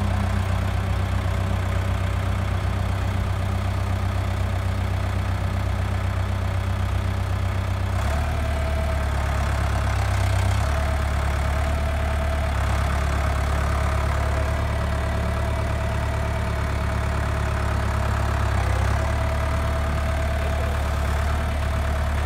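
Case IH JX1085C tractor's diesel engine running steadily at low speed, a continuous low drone with a steady higher whine over it. Its pitch shifts slightly about eight seconds in and again a couple of times later, as the L730 loader arms are lowered.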